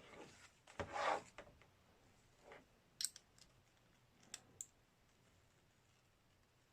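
Faint handling of small tool parts: a short scrape about a second in, then a few light clicks as the rivet gun's accessories, such as the included wrench, are picked up and set down.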